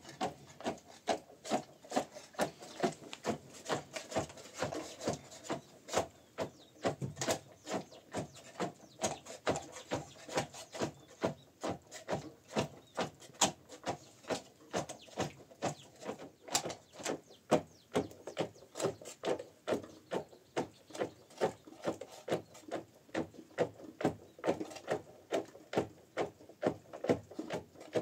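Rhythmic scraping strokes on wood, a little over two a second, keeping an even pace throughout.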